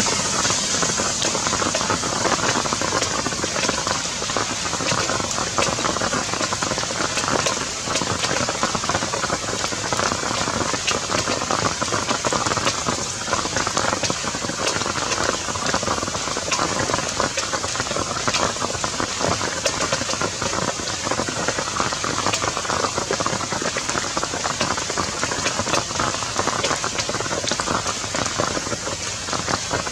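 Steady downpour of rain: a dense, even hiss with many separate drop hits on a surface.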